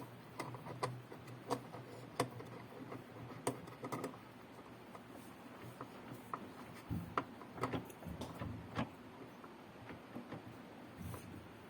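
Scattered light clicks and taps at an irregular pace, with a few sharper knocks among them.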